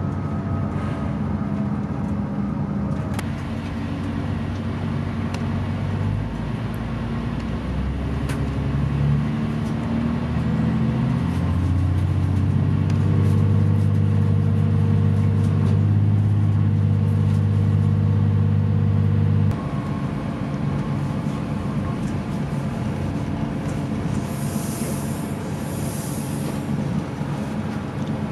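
Train running, with a steady low engine drone that steps up in pitch about ten seconds in, stays loud, then drops off abruptly shortly before twenty seconds and settles to a quieter steady rumble.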